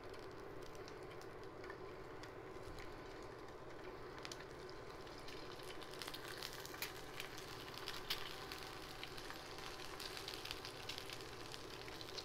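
Halved boiled eggs frying in a little refined oil on a hot tawa: a faint sizzle with light crackles and spits that come more often after about six seconds, over a steady hum.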